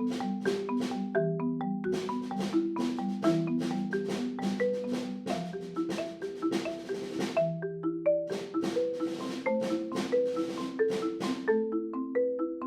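Marimba played with mallets: a continuous passage of quickly struck notes, each ringing briefly, with a melody over lower notes, recorded raw with no processing.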